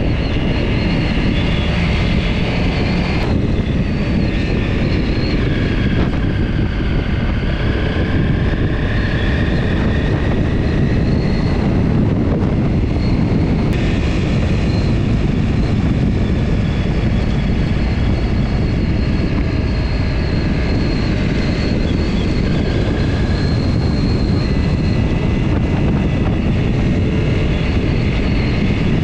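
Honda CRF250 Rally's single-cylinder four-stroke engine running steadily under way, with wind rush over the bike.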